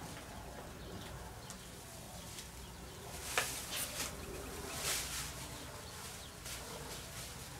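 Clear plastic masking film crinkling and rustling as it is pulled and smoothed by hand, in a short cluster of sharp crackles a little before the middle, over a faint low steady hum.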